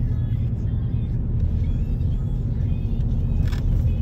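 Steady low road rumble of a car driving, heard from inside the cabin, with a brief click about three and a half seconds in.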